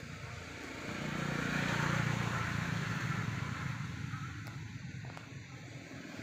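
A motor vehicle passing: its engine rumble swells about a second in and fades away over the next few seconds.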